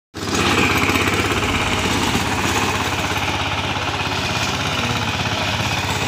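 VST power tiller's engine running steadily with a fast, even pulsing beat as the machine tills soil.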